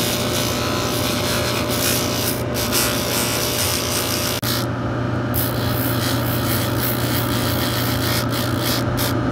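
Spinning abrasive sanding disc on a cobbler's finishing machine grinding down a new leather sole, a scratchy rasp over the steady hum of the motor, with a brief break about four and a half seconds in.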